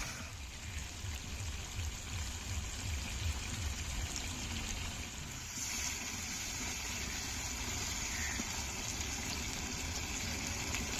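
Chicken and potato curry sizzling in a karai over a wood fire: a steady frying hiss as the masala is cooked down dry. The hiss gets a little brighter about halfway through.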